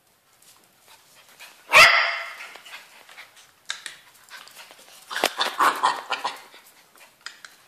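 Small dog barking: one sharp bark about two seconds in, then a quick run of several barks and yips a few seconds later.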